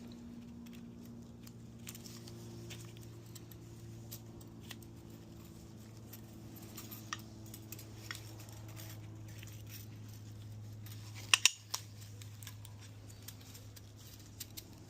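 Scattered small metallic clicks and taps of hand tools and engine parts being worked during piston and ring installation, with two sharp taps close together about eleven seconds in, over a steady low hum.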